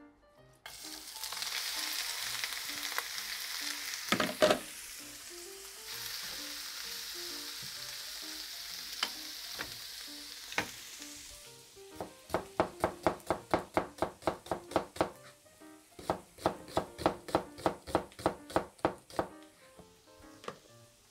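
Sliced onions sizzling as they fry in oil in a frying pan, with a loud clatter about four seconds in; the sizzle fades just past halfway. Then two spells of quick knocks, about five a second.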